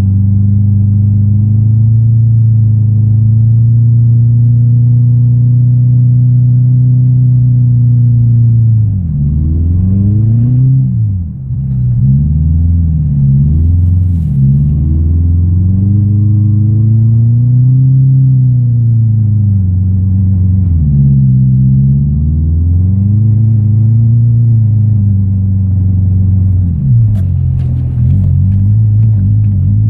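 Subaru Forester's flat-four engine running under load, its pitch holding steady, then repeatedly falling and rising as the revs drop and climb while the car drifts in snow.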